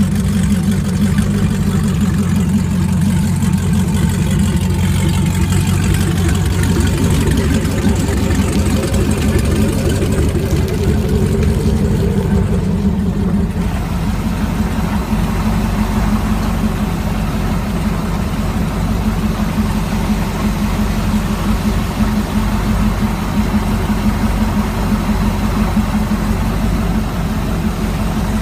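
Chevrolet 6.2-litre LS3 V8 with an LS9 camshaft, marinised in a boat, running at a steady idle on its first run after the engine swap.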